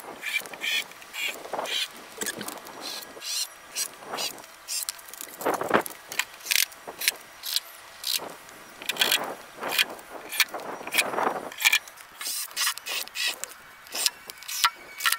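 Irregular clicks, taps and a few heavier knocks of hand work on an aluminium storm door frame as its mounting screws go in.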